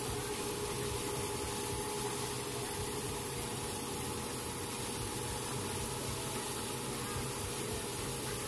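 Shaktiman sugarcane harvester running steadily as it cuts standing cane and carries it up its elevator: an even machine drone with a constant tone held through it.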